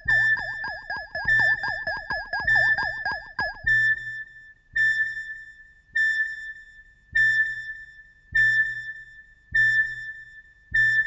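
Synthesized electronic sound effect: a high electronic beep pulsing about once every 1.2 seconds, each pulse with a low hum beneath it. A fast warbling tone runs under the beeps for the first few seconds, then cuts out, leaving the beeps alone.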